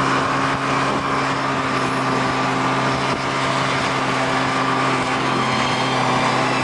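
Snowmobile engine running steadily under way, its note stepping up right at the start as it picks up speed, then holding, with track and wind noise around it.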